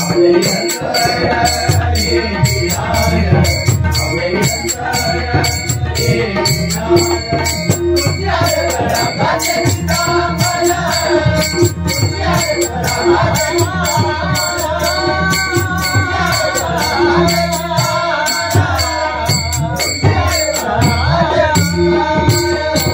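Marathi bhajan accompaniment of pakhawaj and tabla drumming with small hand cymbals jingling in a fast, steady beat. From about eight seconds in, a voice sings a gliding melody line over the rhythm.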